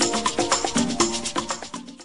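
Upbeat intro jingle music with a quick, steady percussive beat and pitched notes, fading out near the end.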